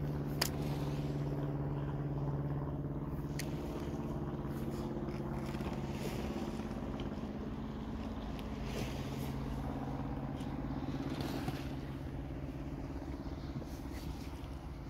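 A motor engine running steadily, a low hum with even overtones that eases off slightly near the end, with a couple of sharp clicks early on.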